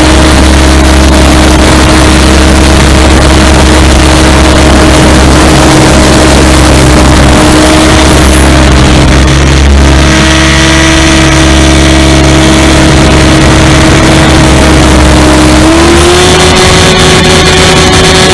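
SAB Goblin 500 electric RC helicopter in flight, heard from a camera on board. A steady motor and rotor whine sits under heavy wind and vibration noise, and the pitch steps up slightly near the end.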